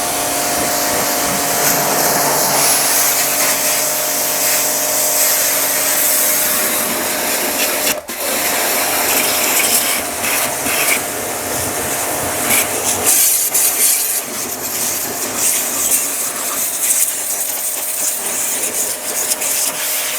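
Agaro Supreme 1800 W electric pressure washer running, its pump motor humming steadily under a hiss of high-pressure water spray. The sound starts abruptly and dips for a moment about eight seconds in.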